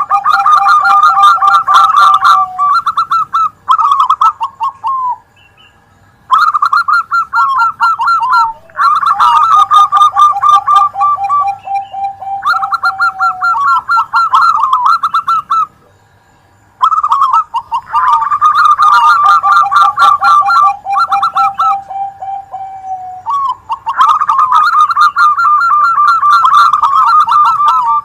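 Several zebra doves (perkutut) cooing over one another in overlapping runs of rapid, stuttering notes at different pitches. The calling stops briefly twice, about five and sixteen seconds in.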